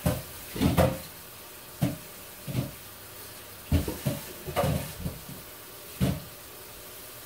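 A string of irregular knocks and clunks of kitchenware, such as a colander and dishes, being handled at the sink, over a faint steady hiss.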